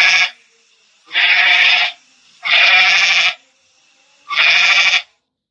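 Goat bleating: four calls of just under a second each, evenly spaced about a second and a half apart.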